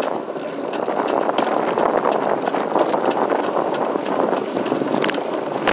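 Schwinn Traveler bicycle rolling downhill at speed: a steady rush of tyre and air noise with scattered small clicks and rattles, getting louder about a second in.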